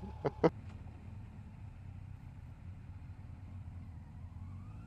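Motorcycle engines idling at a low level. About four seconds in, an engine note rises steadily in pitch as a bike pulls away.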